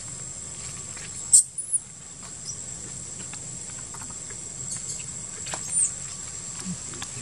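Steady high-pitched insect drone, broken by a few short, high chirping squeaks: a sharp one with a click about one and a half seconds in, a smaller one just after, and another near six seconds.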